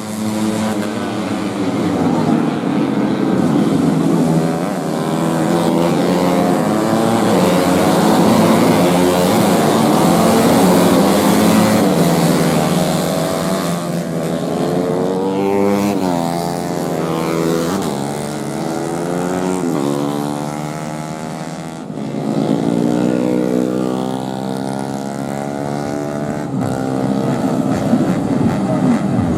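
Four-stroke racing motorcycles at full throttle, loud and continuous, their engine pitch climbing again and again through the gears and falling as the bikes pass by.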